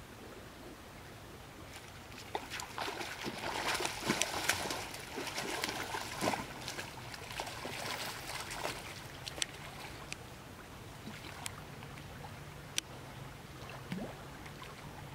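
A hooked catfish thrashing and splashing in shallow pond water as it is hauled in to the bank. The splashing builds about two seconds in, is heaviest around four to five seconds, and dies away after about nine seconds, leaving only a few scattered sharp ticks.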